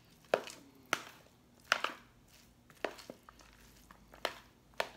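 A metal spoon stirring potato salad in a large plastic bowl, knocking against the bowl's side about six times at an uneven pace.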